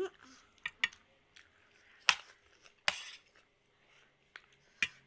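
Metal spoons and forks clinking and scraping on plates, including a stainless-steel plate, while two people eat noodles: about five short, sharp clinks spread out, the loudest a little after two seconds in, with faint eating noises between.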